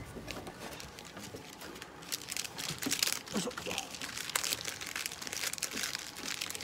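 Plastic syringe wrappers and a cardboard medicine box crinkling and rustling as they are handled, in irregular short rustles that get busier about two seconds in.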